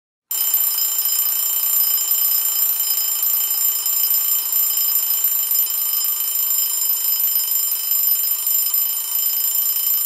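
Alarm clock ringing continuously at a steady, loud level, starting a moment in.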